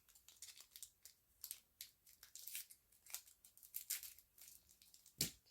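Pokémon card booster pack's foil wrapper being torn open and crinkled: a faint run of irregular crackles and ticks, with one sharper click near the end.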